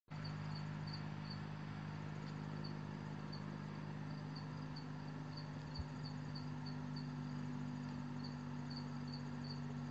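Faint outdoor ambience: an insect chirping high and thin, two or three chirps a second, over a steady low hum. There is one soft bump a little before six seconds in.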